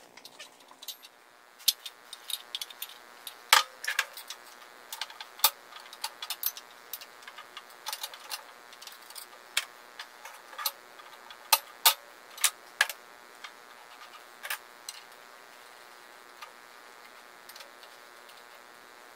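Irregular metallic clicks, taps and knocks of parts and tools being handled while a small belt/disc sander is taken apart, with a faint steady hum underneath.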